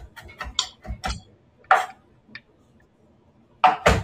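Knife chopping on a cutting board: a run of quick, even strikes, a pause, then more strikes near the end.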